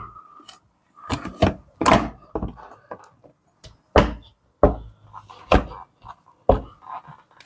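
uPVC casement window sash knocking and clunking against its frame and hinges while it is held and lined up in the opening: about eight uneven knocks, several of them loud.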